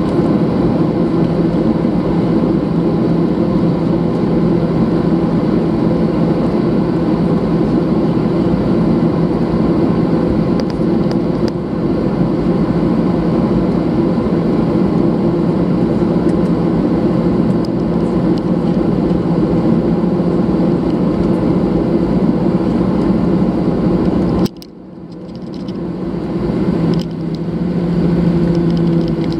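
Jet airliner cabin noise while taxiing: a steady engine hum and drone. About three-quarters of the way through it drops away suddenly, then builds back over a couple of seconds.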